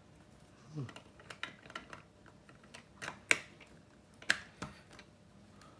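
LEGO plastic bricks being handled and pressed together: a run of small plastic clicks, with two sharp snaps about three and four seconds in, and a short falling squeak about a second in.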